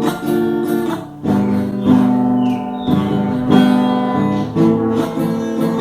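Acoustic guitar strumming chords, with a brief drop in loudness about a second in before the strumming resumes.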